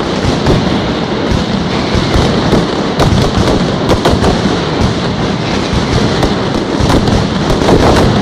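Mascletà: a loud, dense, unbroken barrage of masclet firecrackers going off in rapid fire, the bangs overlapping with no gaps between them.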